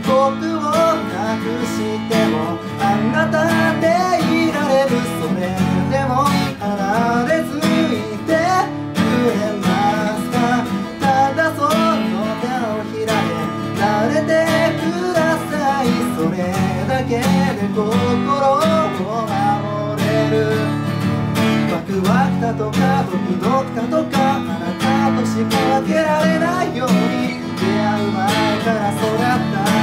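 Solo acoustic guitar strummed and picked as a song accompaniment, with a man's voice singing over it.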